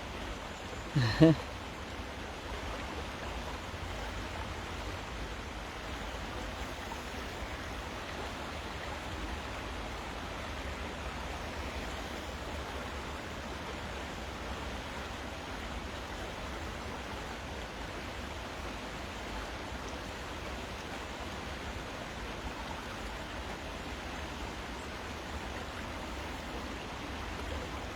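Steady hiss of rain falling on a river and its flowing water, even throughout, with one short, louder sound about a second in.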